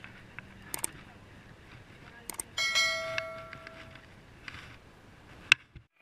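A few sharp clicks and knocks, the loudest near the end, and one bell-like metallic ring a little over two and a half seconds in that fades away over about a second.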